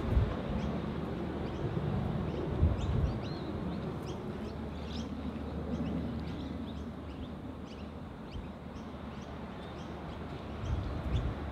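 Small birds chirping in quick, short high notes over the steady low drone of an idling diesel locomotive, with a few wind gusts on the microphone.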